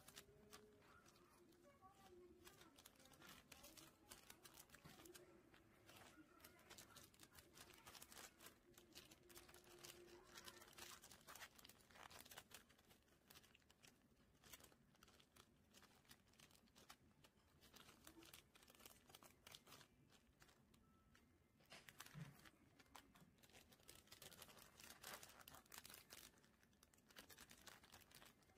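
Clear plastic packaging sleeves crinkling and crackling faintly in irregular bursts as hands fold and press them around photocards.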